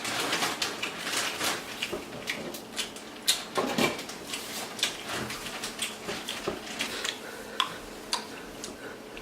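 Scattered, irregular clicks and light knocks of small objects being handled, with a clattering, dish-like quality.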